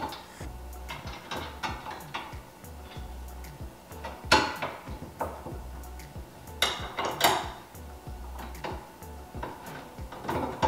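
Small metal hardware clinking and clicking against a steel pole and support bars as bolts, washers and a pin are handled and fitted, with a few louder metallic knocks about four seconds in and again a little after the middle.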